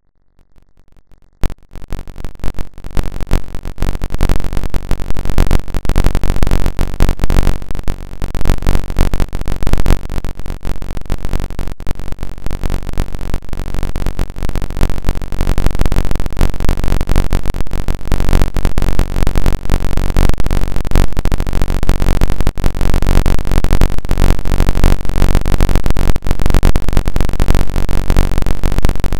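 Loud wind buffeting the wing-mounted action camera's microphone, cutting in abruptly about a second and a half in as the Blanik glider accelerates and climbs, with a steady, unchanging drone underneath.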